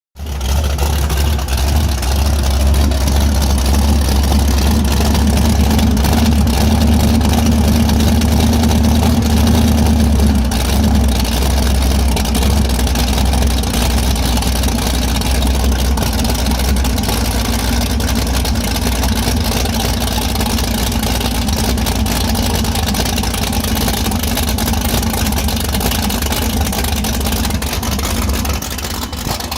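Newly installed engine of a 1988 Sunsation Rocket powerboat running steadily on its first start, a deep continuous drone that eases slightly in the second half.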